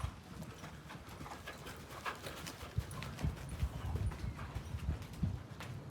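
Hoofbeats of a ridden horse, an uneven run of dull thuds that grows stronger about halfway through.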